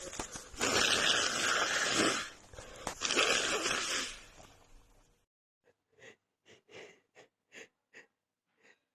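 A person with a head cold blowing a congested nose hard twice, each blast lasting more than a second. These are followed by a run of about nine short, faint sniffs or breaths at an uneven, quick pace.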